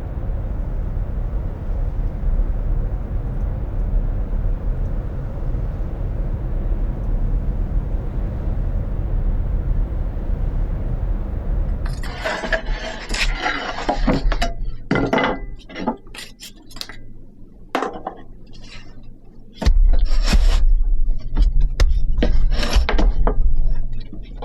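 A steady low rumble, then from about halfway a run of sharp clinks and knocks of hard objects being handled. A louder low rumble comes back near the end.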